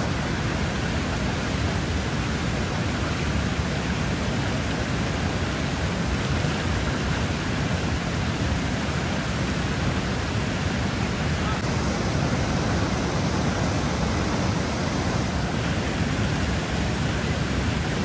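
Steady rush of fast-flowing river water, an even noise that holds without a break.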